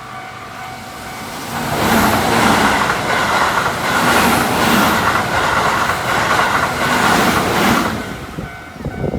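A Keihan Main Line electric train passing close through a level crossing, its wheels clicking over the rail joints in a regular rhythm, about two a second. The crossing's warning bell rings under it. The train arrives about two seconds in and has passed near the end.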